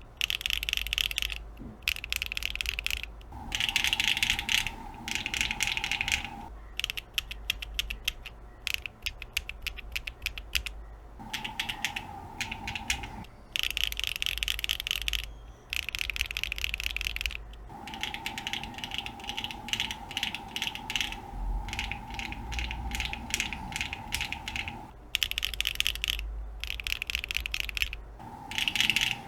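Mechanical keyboard switches clacking rapidly in runs of a few seconds with brief pauses between them: a loud, clacky sound test of long-pole linear switches.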